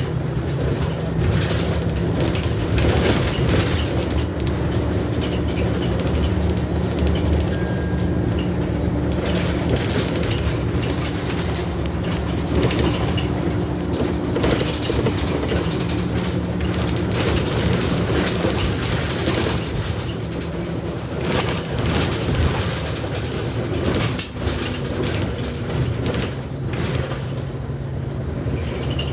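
Go North East single bus in service, heard from inside: the diesel engine running steadily under a dense, constant rattle of the bodywork and fittings.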